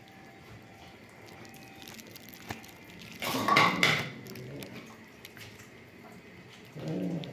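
Cats eating from a plastic food bowl on a tile floor, the bowl clattering loudly for about a second about three seconds in.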